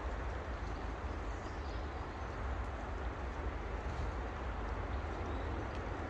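Steady low outdoor rumble and hiss of garden ambience, with no distinct event standing out.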